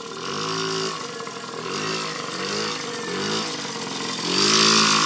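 Small gas-engined kids' dirt bike revving up and down about five times as the throttle is worked, the last rev near the end the loudest.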